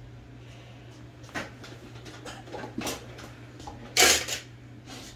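Small metal parts clicking and clattering as they are handled on a workbench: a few scattered knocks, the loudest clatter near the end, over a low steady hum.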